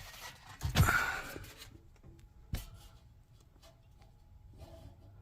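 Handling noise: a short scraping rustle with a low thud about a second in, then a single sharp knock a second and a half later.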